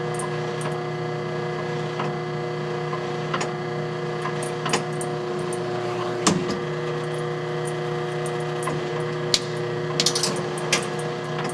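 Vintage black-and-white photobooth's machinery running: a steady electric motor hum under scattered sharp clicks and clanks from the mechanism, with a quick cluster of them about ten seconds in.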